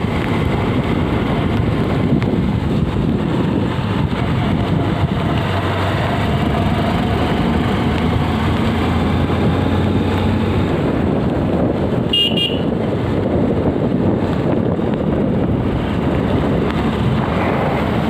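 Steady running noise of a vehicle driving on a wet road: engine hum with tyre and wind noise. A brief horn toot sounds about twelve seconds in.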